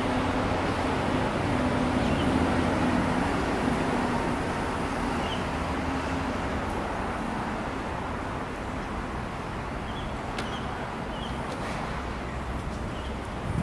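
Steady outdoor background noise like distant road traffic and wind on the microphone, with a low steady hum that fades out over the first half. Faint short high chirps come now and then.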